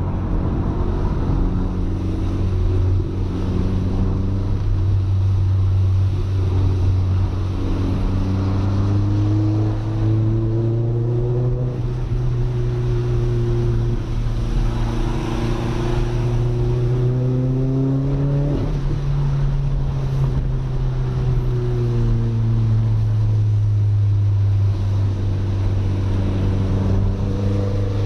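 Audi A3 1.8T 20v turbocharged four-cylinder engine heard from inside the cabin while driving, its pitch climbing slowly as the car gathers speed, then easing back down after a brief break about two-thirds of the way through. Tyre and spray hiss from the wet road runs underneath.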